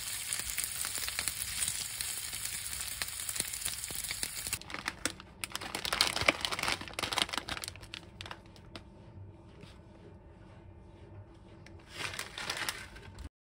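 Pork belly sizzling in a frying pan while it is turned with tongs. The sizzle stops abruptly about four and a half seconds in, and a plastic instant-noodle packet crinkles as it is handled. A brief rush of noise comes near the end.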